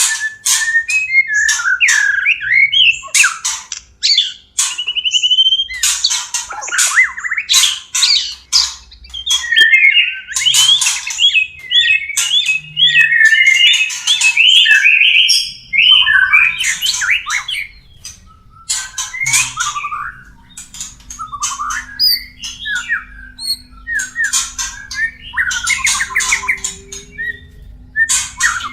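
White-rumped shama (murai batu) courtship calling: a fast, varied stream of sharp whistles, chattering warbles and harsh squawks from a breeding pair. A low steady hum comes in about halfway.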